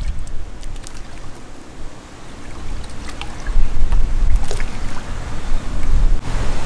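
Wind buffeting the microphone in uneven gusts, with a few light splashes of cut bait chunks hitting the water.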